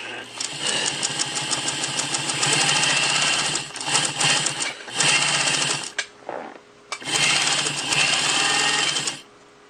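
Pfaff 130 sewing machine running and stitching with a fast, even patter of needle strokes, stopping and starting several times in short runs.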